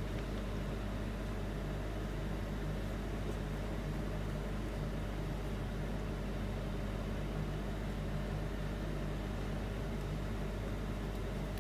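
A steady low machine hum, unchanging throughout, with a constant drone underneath.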